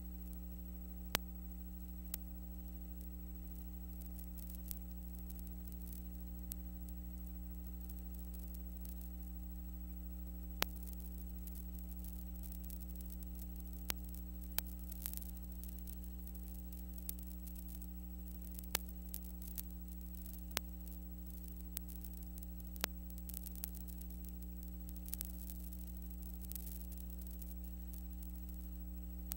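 Steady electrical hum with hiss, broken by scattered sharp clicks and crackles: the noise of the empty audio track on a transfer of silent film, with no live sound of the game.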